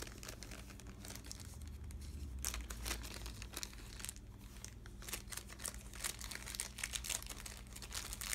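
Small resealable plastic bag crinkling and crackling in irregular bursts as it is handled and opened to get at the pawns inside.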